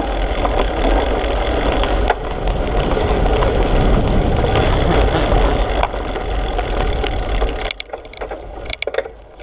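Wind buffeting and ride noise on a mountain biker's action-camera microphone: a loud, steady low rumble that drops off sharply near the end, leaving a few clicks.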